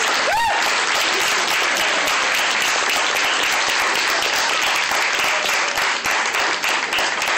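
Audience applauding steadily, with a brief rising-and-falling tone near the start.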